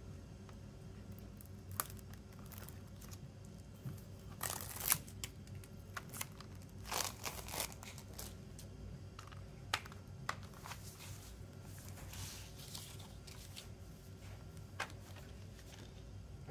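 Plastic wrapping on a CD jewel case crinkling and tearing in short bursts as it is unwrapped, mixed with sharp clicks of the plastic case being handled and opened.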